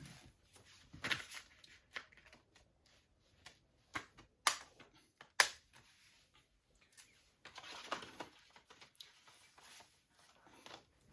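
A Blu-ray case being handled: scattered sharp plastic clicks and snaps, the loudest about four and a half and five and a half seconds in, with a stretch of rustling around eight seconds.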